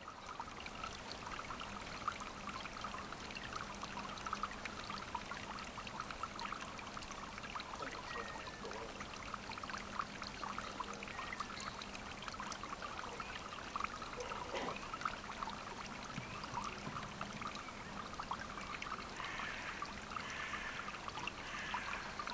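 Running water trickling and splashing steadily, with a faint low hum underneath.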